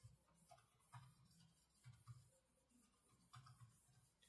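Near silence, with a few faint clicks and taps from fingers working a laptop.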